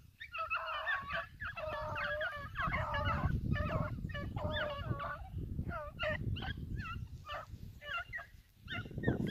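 A pack of beagles baying on a rabbit's track, many cries overlapping at first, then coming in shorter separate calls, with a brief lull near the end before they pick up again.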